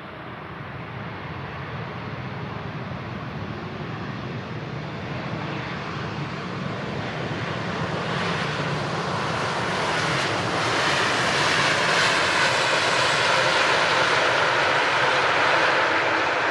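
Airliner coming in to land, its engine noise growing steadily louder as it approaches, with the high hiss filling in over the second half.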